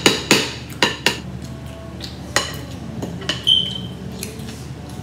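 Metal forks clicking and scraping against dinner plates as people eat: a quick run of sharp clinks in the first second, then scattered single ones, one with a short ringing tone about three and a half seconds in.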